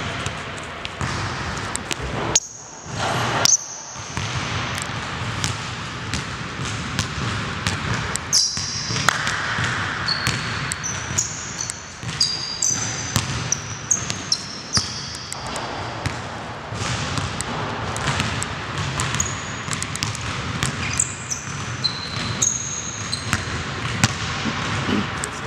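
Basketball bouncing on a hardwood gym floor, with sneakers squeaking in short high chirps as the players cut and stop.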